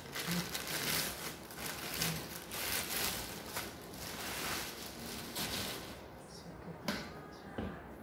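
Clear plastic wrapping crinkling and rustling as a folded light stand is pulled out of its bag, for about six seconds. Then it goes quieter, with two sharp clicks near the end as the stand is handled.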